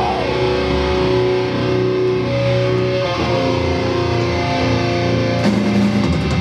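Loud live band music: electric guitars hold long sustained notes that change every few seconds, and drum hits with cymbals come in about five and a half seconds in.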